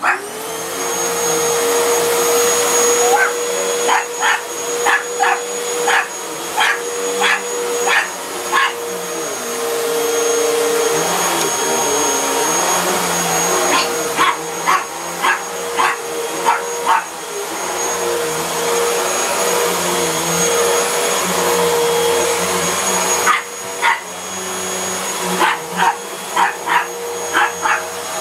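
Upright vacuum cleaner starting up at the beginning and running steadily over a rug, a hum with a steady high whine above it. A black pug barks at it in three bouts of quick repeated barks.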